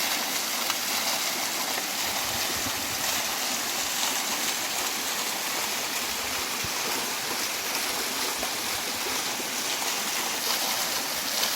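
Small mountain waterfall and river: a steady, even rush of falling and flowing water.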